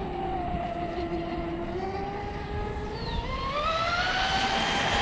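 Oxidean Animal 2 RC boat running on the lake, its motor whine dipping slightly, then climbing in pitch about halfway through as it speeds up and holding at the higher pitch.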